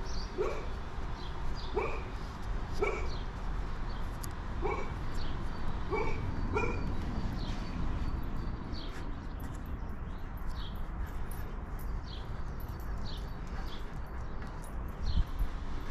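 A dog barking repeatedly, about six short barks in the first seven seconds, over a low steady rumble; faint high chirps follow in the second half.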